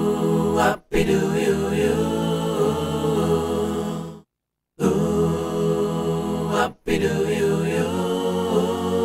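Multi-tracked choir vocals, 27 layered voice tracks recorded through a Slate VMS ML-1 modelling microphone with no microphone emulation applied, played back as sustained sung chords. Two similar phrases are heard, split by a short full stop a little past the middle, with brief breaks for breath about a second in and near the end.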